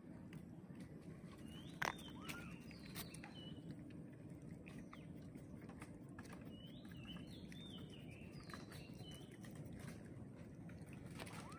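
Faint, short high-pitched chirps, scattered at first and then in a run through the second half, over a steady low background rumble. A single sharp tap comes about two seconds in.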